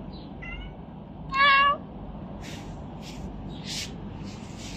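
Domestic cat meowing: a faint short meow, then a louder, high-pitched meow about a second and a half in that rises slightly and holds briefly. A few short, soft noises follow.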